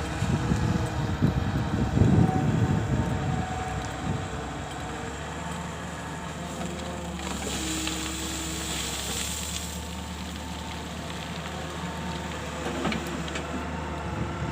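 Excavator diesel engine running steadily, with wind buffeting the microphone in the first few seconds and a burst of hiss in the middle.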